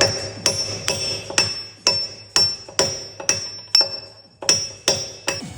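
Hammer blows on a brass drift bar, driving a spacer into a JCB boom pivot: about a dozen ringing metal strikes, roughly two a second, with a brief pause just after four seconds in.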